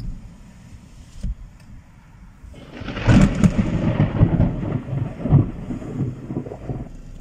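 Thunder rolling in about two and a half seconds in: a loud, deep rumble with many crackling peaks that lasts about four seconds, then dies away.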